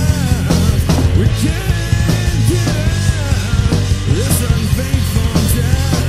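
Loud grunge-style rock recording: a full band with a dense low end and repeated drum and cymbal hits, and a melodic line that bends up and down in pitch over it.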